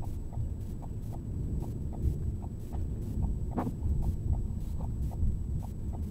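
Steady low rumble of wind and a car around the microphone, with a car's indicator ticking evenly, about three clicks a second. One louder thump comes a little past halfway.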